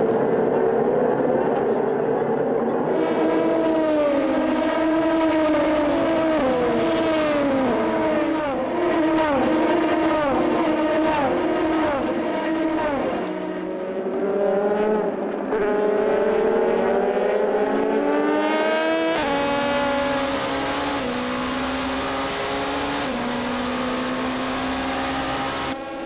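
Several Le Mans prototype race cars accelerating hard through a race restart on a wet track. Their engines climb in pitch through repeated upshifts as they pass. A louder car arrives about two-thirds of the way in, and its engine note drops in steps near the end as it downshifts.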